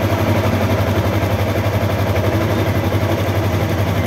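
Yamaha YZF-R3's 321 cc parallel-twin engine idling steadily in neutral, with an even low pulse.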